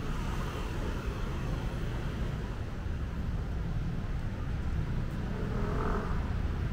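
City street traffic: a steady low rumble of passing cars and engines.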